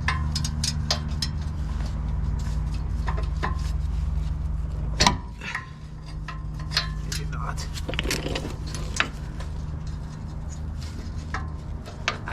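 Metal tools clinking and tapping at irregular moments, the loudest about five seconds in: a socket and wrench being worked and swapped on a rusty exhaust manifold bolt. A steady low hum runs underneath.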